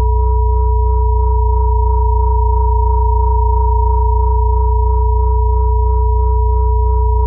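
Synthesized pure sine tones held steady with no melody: a high tone, a middle tone and a deep low hum layered together, the 963 Hz crown-chakra solfeggio tone over 432 Hz and low-frequency binaural beat tones.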